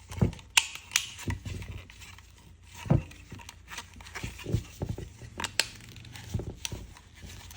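Plastic parts of a Dyson V10 direct drive cleaner head being handled and fitted together while a clip goes in: irregular small clicks and knocks of plastic.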